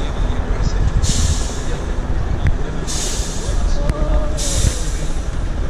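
Off-road trial truck's diesel engine running under load as it climbs a steep bank, a steady low rumble, with three short bursts of hiss about a second apart.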